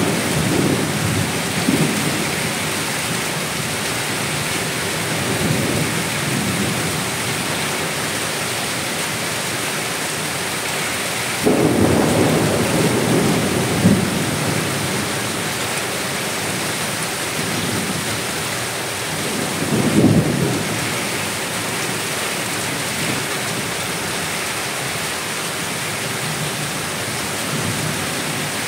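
Heavy rain falling steadily in a thunderstorm, with several rolls of thunder rumbling underneath. The loudest come about twelve seconds in and about twenty seconds in.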